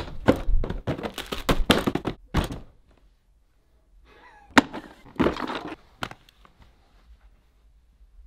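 Things being handled and dropped into an open hard plastic equipment case: a quick run of clicks and thunks for about two and a half seconds, then a sharp knock and a short rustle a little later.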